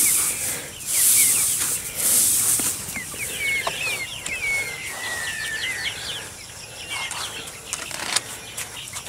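Dry rice hulls rustling and pattering as they are tossed by hand from a plastic bucket, in about three swishes over the first couple of seconds. Young chickens peep and cheep throughout, in short rising and falling calls.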